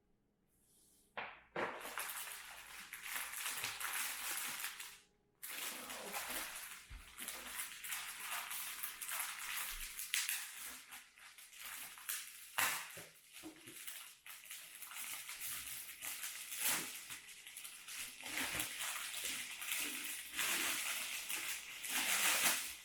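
Packaging rustling and crinkling as items are handled and pulled out of a merch bag. It starts about a second and a half in, pauses briefly near five seconds, then goes on with a few sharper crackles.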